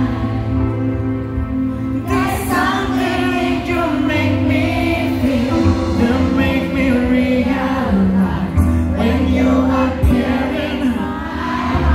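A man singing a song live into a microphone over a band accompaniment with bass and drums, amplified through a concert sound system.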